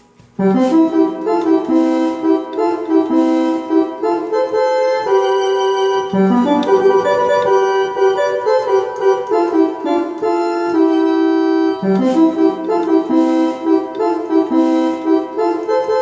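Korg Triton Extreme keyboard playing a melody with an organ-like sound, coming in about half a second in after a brief pause.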